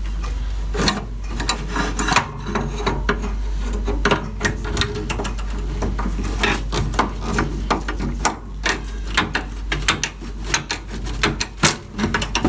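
Close-up hand work on small hard parts and tools: an irregular run of sharp clicks and knocks mixed with scraping and rubbing, over a steady low hum.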